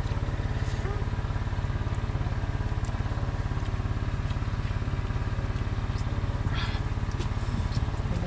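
A small engine running steadily at one speed: a low hum with a fast, even pulse.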